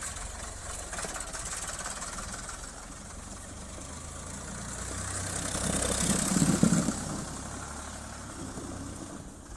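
Ford 3600 tractor's three-cylinder engine running as the tractor is driven around in a circle on a test drive after a brake job. A louder rush of noise swells and peaks about six and a half seconds in, and the engine sound fades near the end as the tractor pulls away.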